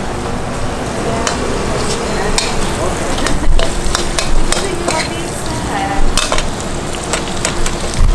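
Food sizzling in oil in a wok while a metal spatula stirs and scrapes it, with repeated sharp clanks of steel on the wok.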